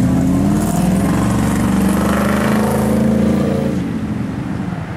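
A car engine running, its hum rising a little in pitch and growing louder, then fading out about four seconds in.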